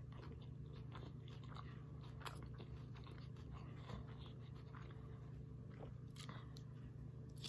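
Faint close-up chewing of a fish taco in a toasted corn shell: soft, irregular crunches and mouth sounds, with another bite taken near the end. A steady low hum runs underneath.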